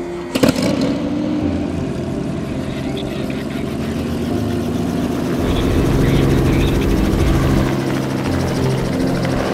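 Light helicopter running with its rotor turning, growing louder in the second half as it lifts off. A sharp knock sounds about half a second in.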